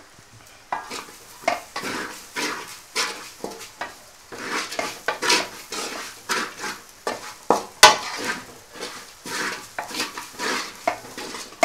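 Wooden spatula scraping and stirring a dry grated-coconut and masala mixture around a metal pot, in quick rhythmic strokes about two a second. One sharper knock about two-thirds of the way through.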